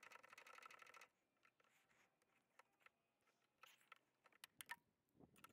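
Faint clicks and taps of hands and parts being handled inside the Cummins Onan QG 4000 generator's engine compartment, starting with a quick run of rapid small clicks that stops about a second in, then scattered light taps.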